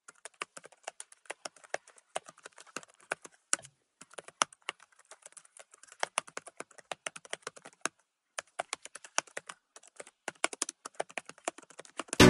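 Rapid, irregular typing: light key clicks several a second, with two short pauses.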